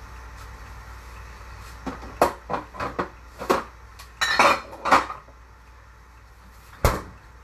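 Kitchen clatter: a quick run of clinks and knocks of dishes and bottles being handled and set down, with a brief rattle in the middle, then one sharp knock near the end.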